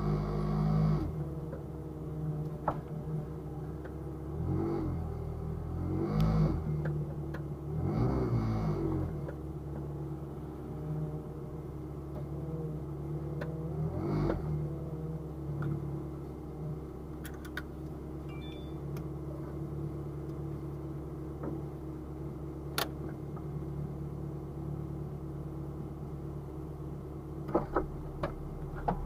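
Car engine idling steadily, with several short revs that rise and fall in the first half. There is a sharp click about two-thirds through and a few more near the end.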